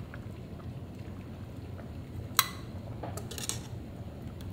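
Kitchen utensils and dishware: one sharp clink about halfway through, then a few lighter clatters, over a low steady background hum.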